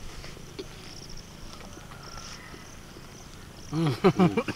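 Mostly a faint, steady background. About four seconds in comes a short wordless sound from a person's voice, its pitch rising and falling a few times.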